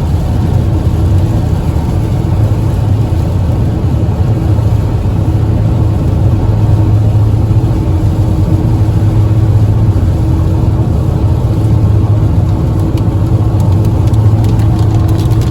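Steady road and engine noise of a car driving on a highway, heard from inside the cabin: a continuous low rumble with a faint steady hum.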